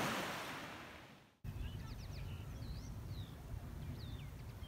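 Surf washing up a sand and shingle beach, fading away over the first second and a half. Then several short whistled bird calls rising and falling in pitch, over a low steady rumble.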